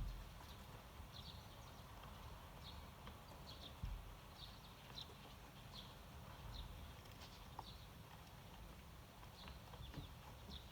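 Eurasian tree sparrows chirping faintly: a dozen or so short, high chirps at irregular intervals over a low rumble, with a soft thump about four seconds in.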